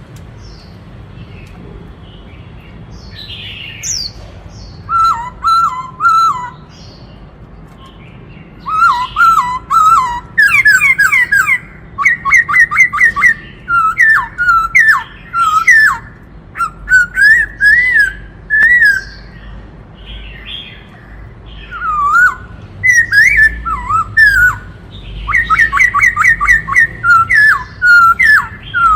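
Black-throated laughingthrush singing a varied song of quick, loud whistled notes, delivered in bursts a few seconds long with short pauses between them. A faint low hum runs underneath.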